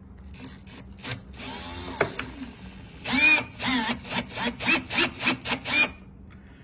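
Power drill driving screws to fasten a cabinet door handle: a short steady run, then a quick series of brief trigger pulses, about three a second, the motor whirring up and down with each.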